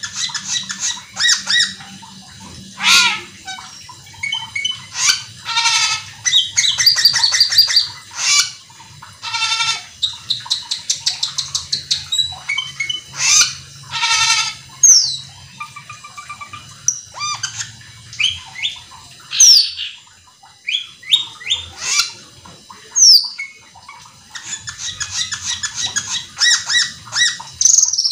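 A caged cucak keling, a red-eyed glossy starling, singing a fast, non-stop song. Rapid rattling trills alternate with sharp, squeaky falling whistles and short chirps, phrase after phrase with only brief pauses.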